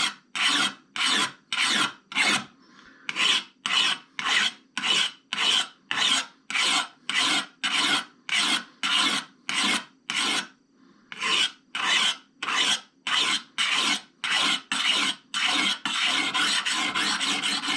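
A 360-grit diamond hone stroked by hand along the clamped steel blade of a pair of shears, a rasping scrape about twice a second. There are two brief pauses, and near the end the strokes quicken and run together.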